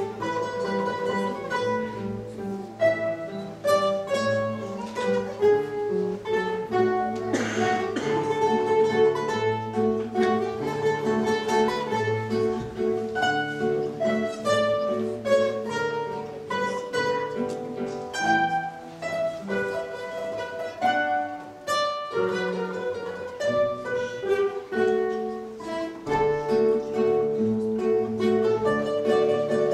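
Ensemble of seven classical acoustic guitars playing a lively piece together, many quickly plucked notes in several parts at once.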